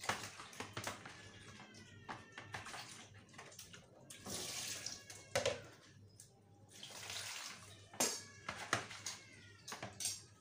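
Water splashing and sloshing in a plastic basin as peeled pineapple is washed by hand. It comes as pours and swishes, with knocks of the fruit and container against the basin. Two short squeaks, falling in pitch, come about two seconds in and near the end.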